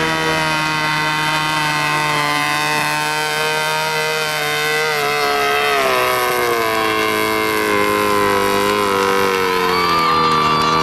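Small homemade tractor's engine running steadily under load as it climbs a dirt slope, its note dipping in pitch about halfway through and settling lower.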